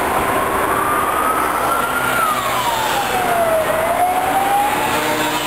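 A siren wailing slowly over steady city traffic noise: its tone climbs, falls away over about a second and a half around the middle, then climbs again.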